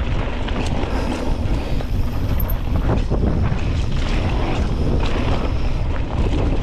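Wind buffeting the microphone with a steady low rumble, over the crunch and rattle of mountain bike tyres rolling on loose dirt singletrack.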